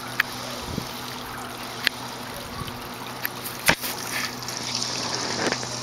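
Small pond waterfall trickling and splashing as water spills from shell spouts into the pond, over a steady low hum. A few sharp clicks stand out, the loudest nearly four seconds in.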